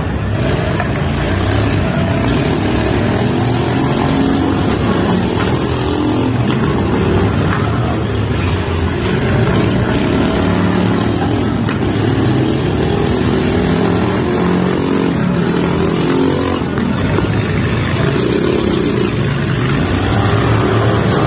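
Several riding lawn tractor engines running at once, their pitches shifting up and down as they rev.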